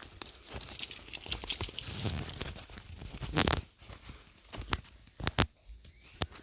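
Crackling rustle of dry ground cover for about two seconds, then a handful of separate sharp crunching steps.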